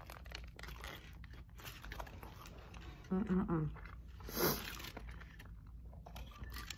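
Close-up eating sounds: a bite into a soft flour-tortilla burrito filled with barbacoa and rice, then wet chewing with many small mouth clicks. A short hum from the eater comes a little past three seconds in.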